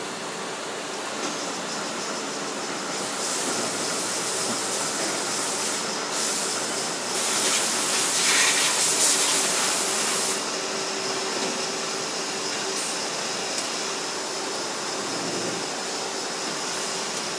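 Factory-floor machinery running with a steady hum. A loud hiss starts about three seconds in, is strongest from about seven to ten seconds, then cuts off suddenly.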